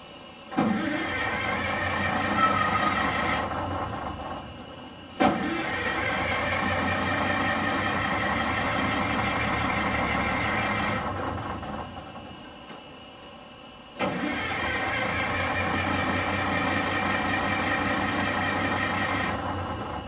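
Crown school bus engine cranking on its starter in three long attempts, each beginning with a sharp click. The engine does not start.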